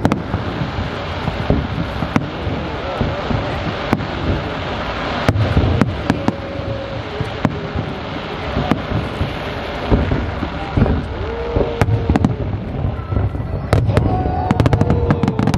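Aerial fireworks shells bursting in rapid succession, a continuous rumble of booms and sharp bangs, with a dense volley of bangs near the end.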